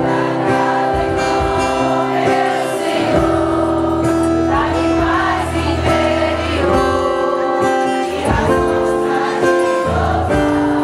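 Worship music: a choir singing over a sustained instrumental accompaniment.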